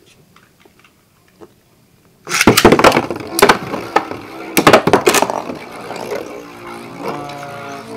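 Beyblade spinning tops clattering and clashing in a plastic stadium: a burst of loud, sharp knocks beginning about two seconds in, then a softer, steadier rattle as the tops spin on.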